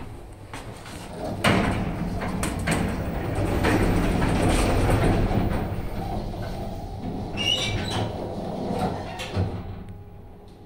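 ЩЛЗ (Shcherbinka) 630 kg elevator: the car doors slide shut with a few clunks in the first seconds, then the car runs in the shaft with a steady rumble and hum that swells and then fades near the end.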